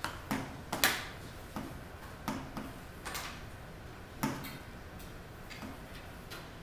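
Stylus tapping and writing on the glass of an interactive classroom display. It makes about a dozen short, irregularly spaced clicks.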